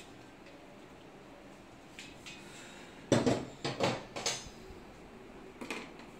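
Hard metal items clinking and knocking together as tools and wall-mount parts are handled: a quick cluster of about five sharp clatters about three seconds in, and one smaller clink near the end.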